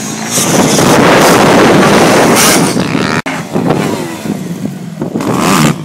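Dirt bike engine revving hard under full throttle as it runs up a jump ramp and launches. The sound is loud throughout, with a sudden brief dropout a little over three seconds in.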